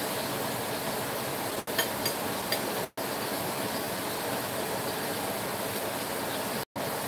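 Steady hissing background noise, dropping out briefly three times.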